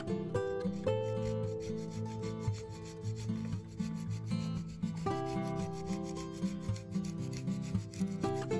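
Parmesan cheese being grated, a dry rasping rub, over acoustic guitar background music.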